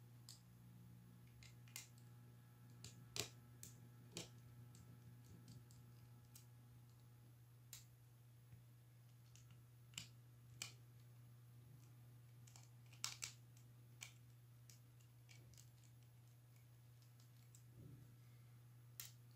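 Small screwdriver clicking and scraping on the screws of a laptop cooling fan and copper heat-sink assembly, with scattered sharp clicks of metal on metal and plastic as the part is handled. A faint steady low hum runs underneath.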